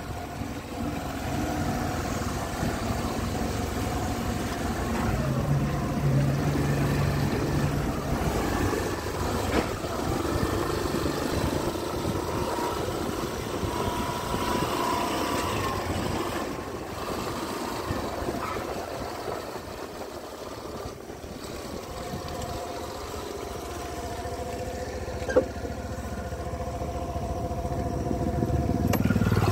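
Suzuki scooter's engine running steadily as it rides along, with one sharp click near the end.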